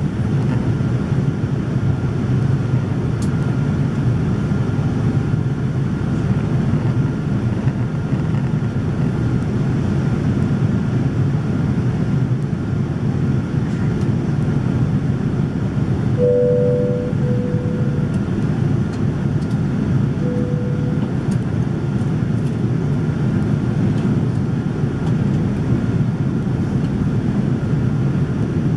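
Boeing 787-9 cabin noise in flight, heard from a window seat over the wing: a steady deep rumble of engines and airflow. A few brief tones sound about halfway through.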